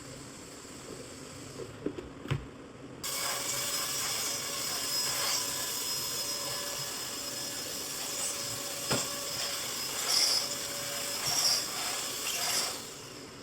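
A couple of sharp clicks, then a loud, steady hissing rush that starts suddenly about three seconds in and stops shortly before the end, with a few small clicks on top.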